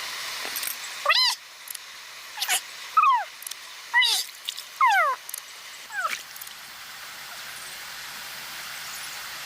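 A series of short animal cries, each falling in pitch, about six of them over five seconds, over a steady hiss.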